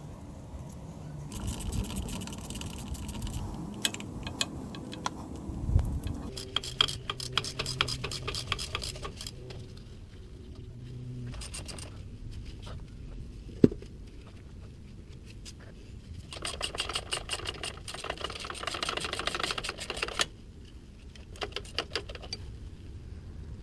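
Ratchet wrench clicking in several quick runs as the rear differential's mount bolts are backed out. There is a single sharp metallic click about two thirds of the way through, and a dull thud near the quarter mark.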